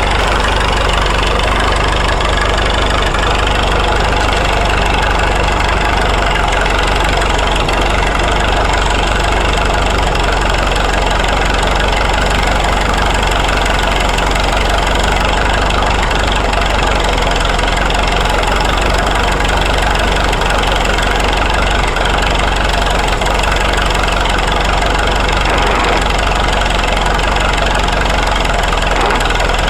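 Engine of a 1927 Fordson-powered Good Roads road roller, a four-cylinder Fordson tractor engine, running steadily.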